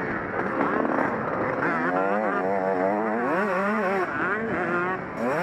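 Honda CR125 two-stroke single-cylinder motocross engine revving hard out of a corner and accelerating up through the gears, its pitch climbing and then dropping back with each shift.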